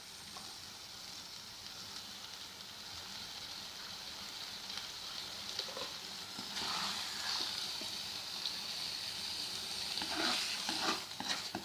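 Chicken tikka masala sizzling in the pan: a steady frying hiss that grows louder about six and a half seconds in, with a few brief knocks near the end.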